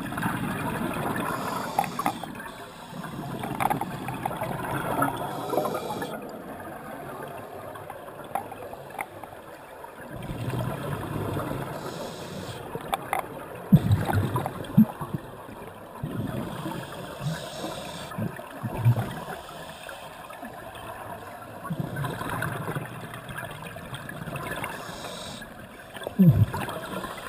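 Scuba regulator breathing heard underwater: bubbling, gurgling exhalations swell up every few seconds, with a few sharp low bubble thumps and short faint hisses of inhalation between them.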